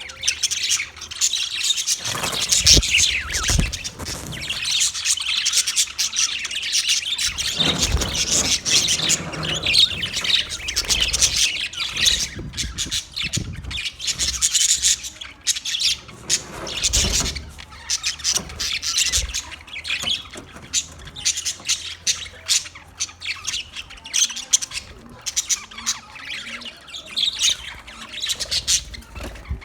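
A group of small pet parrots chirping and squawking continuously, a dense overlapping chatter of high-pitched calls, with a few low thumps.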